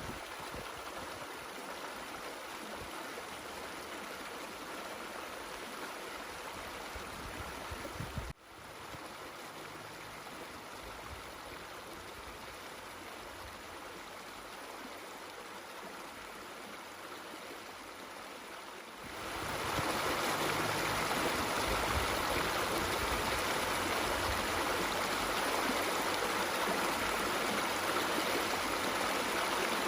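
Jemez River water pouring through the travertine rock bridge at Soda Dam Falls: a steady noise of rushing water. It breaks off briefly about eight seconds in, then becomes much louder and fuller from about nineteen seconds in.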